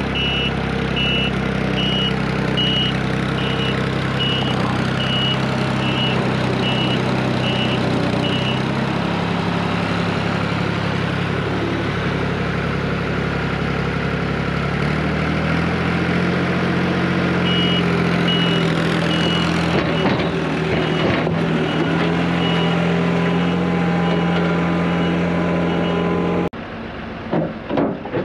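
Diesel engine of a piece of heavy equipment running, with a backup alarm beeping about one and a half times a second. The beeping stops for several seconds in the middle and resumes more faintly. The engine note shifts a few times and cuts off suddenly near the end.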